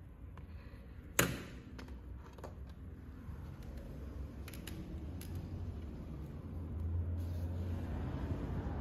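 A sliding glass window clicks sharply about a second in, then gives a few lighter knocks as it is moved. Under it runs a steady low hum of highway traffic, which grows louder near the end.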